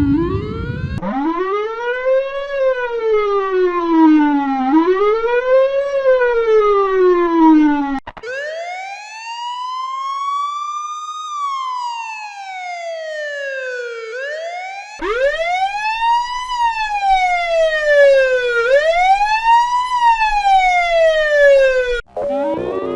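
Police car siren wailing, its pitch sweeping up and down. It switches abruptly every seven seconds or so to another version of the wail, set higher or lower in pitch and faster or slower in its sweep.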